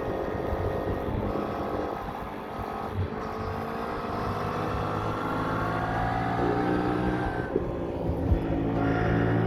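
Yamaha MT-07's parallel-twin engine accelerating, its note rising steadily for several seconds; about three-quarters through it breaks off briefly for a gear change, then pulls again.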